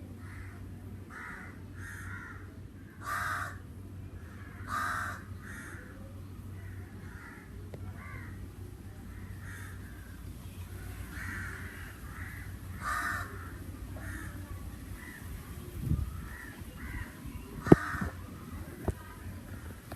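Crows cawing repeatedly, with louder calls about three, five, thirteen and eighteen seconds in, and quieter ones in between. A few sharp knocks near the end.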